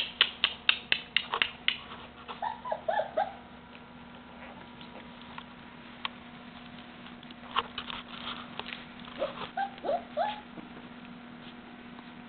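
Cardigan Welsh Corgi puppies at play, giving short high yips and whimpers twice, about two seconds in and again near ten seconds. Quick runs of sharp taps, about four a second, come at the start and again in the middle.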